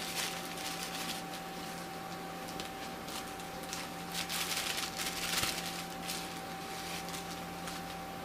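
Plastic packaging, bubble wrap and small zip-lock bags, rustling and crinkling in the hands in short bursts, loudest about four to five seconds in, over a steady faint hum.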